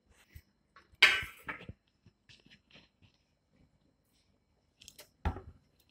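Sparse clinks and knocks of kitchen jars and utensils being handled. A sharp clink with a brief ring comes about a second in, and a dull knock comes near the end.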